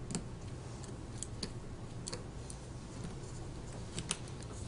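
Small, sharp plastic clicks and taps, several of them spread irregularly, as fingertips press tiny flex-cable connectors onto a smartphone's circuit board.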